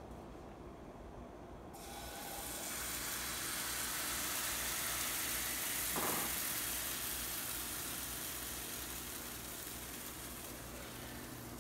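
Thin Swedish pancake batter poured into a hot frying pan, sizzling. The sizzle starts about two seconds in, swells to its loudest around the middle, then slowly fades.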